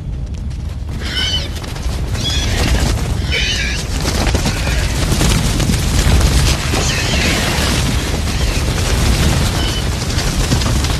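Edited Gallimimus sound effects: a deep continuous rumble, with three short high-pitched calls about one, two and three and a half seconds in and fainter calls later.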